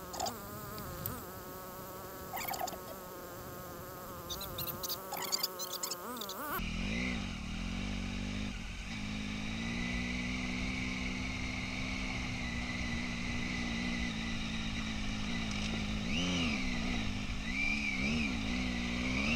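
Adventure motorcycle engine running while riding on a gravel track, its note wavering with the throttle, with scattered sharp clicks. About six and a half seconds in the sound changes abruptly to a lower, louder engine note that rises and falls several times near the end.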